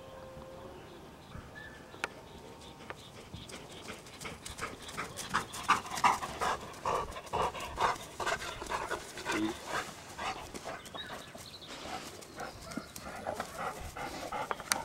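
Black Labrador panting hard after running, in quick, regular breaths that start about four seconds in.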